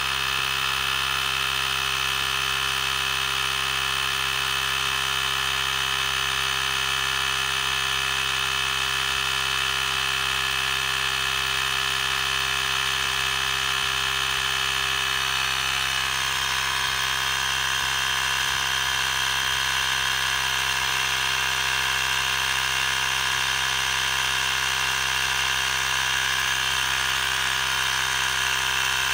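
Ryobi P737 18-volt cordless power inflator running steadily, its small compressor pumping air into a flat riding-mower tire through its hose. Its buzz holds without a break, with a slight shift in tone about halfway through.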